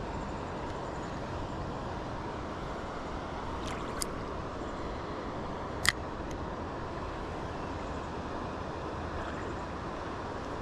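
Creek water running steadily, with a few short clicks, the sharpest about six seconds in.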